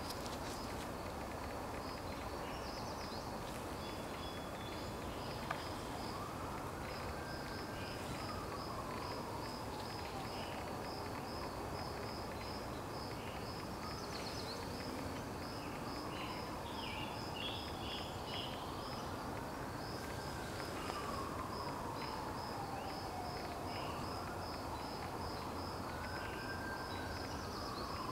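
Outdoor woodland ambience with an insect, cricket-like, trilling steadily in high, even pulses. About five long calls, each rising quickly and then sliding down in pitch, come every few seconds from about a quarter of the way in.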